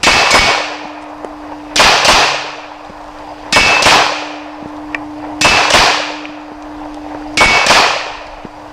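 Five double taps from a 9mm Glock 26 pistol: pairs of shots about two seconds apart, the two shots in each pair a fraction of a second apart.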